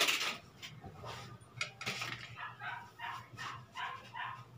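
A dog barking repeatedly in a quick run of short barks, about three a second, starting about one and a half seconds in. A single loud knock comes right at the start.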